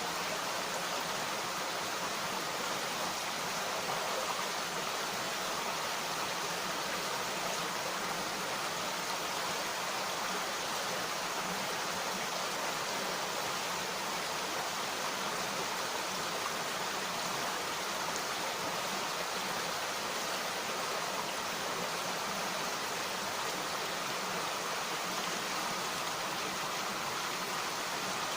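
Mountain stream rushing steadily over rocks, an even, unbroken water noise.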